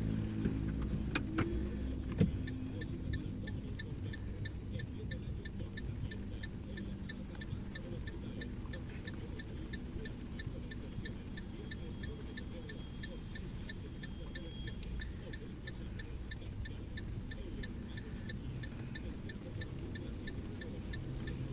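Car running with a steady low road rumble, heard from inside; a few knocks in the first couple of seconds, then a light, even ticking about three times a second.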